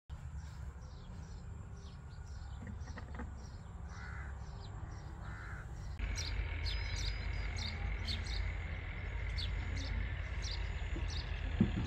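Outdoor bird sounds: a crow caws twice near the middle, over a steady run of quick, high chirps from small birds.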